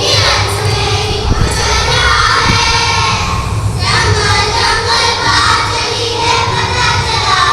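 A group of children singing together over backing music, with a short break in the singing a little under four seconds in.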